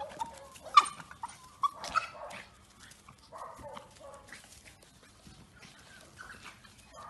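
Small dog barking and yelping in short, sharp calls, loudest in the first two seconds, then softer yips and whines.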